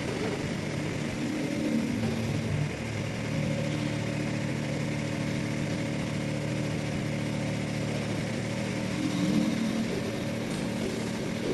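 Solar pile driver's engine running steadily under hydraulic load as its mast levels itself. Its tone shifts a little about a second in and again near the end.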